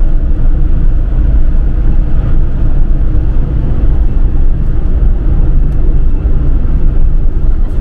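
Camper van driving at road speed, heard from inside the cab: a steady, loud low rumble of engine and tyre noise.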